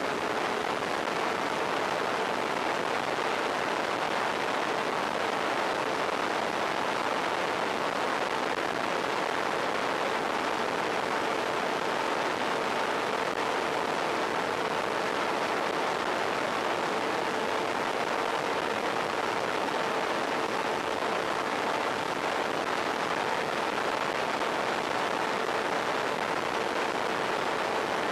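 Steady rushing hiss with a faint, unchanging hum, on the audio of an analogue FPV video feed from a model plane.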